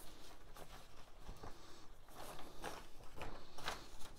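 A sheet of drawing paper rustling and scraping in short, irregular strokes as it is handled and slid into place.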